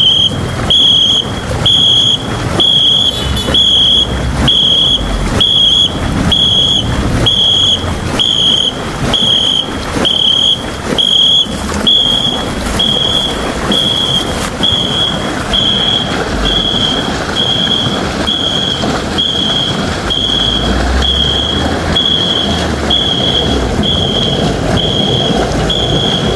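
A whistle blown in short, even blasts, about three every two seconds, calling the stroke rhythm for a ngo long-boat crew paddling. Under it, the water churning and splashing from the paddles.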